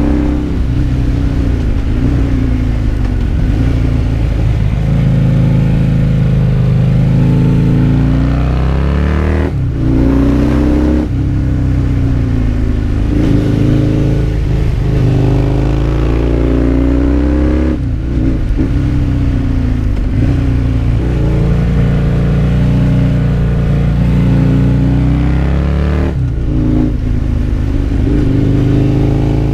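Husqvarna Nuda 900's parallel-twin engine heard from on the bike while riding. Its pitch climbs under throttle and falls back again and again, with short breaks about four times, as at gear changes or throttle lifts.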